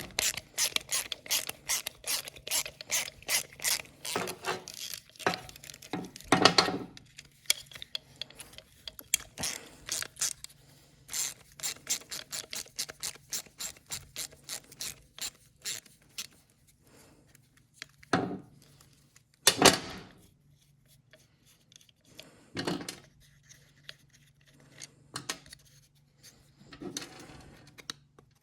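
Hand socket ratchet clicking in quick, even strokes, with short breaks, as it loosens the screws of a lawnmower carburettor's float bowl; later come a few separate louder clunks as parts are handled.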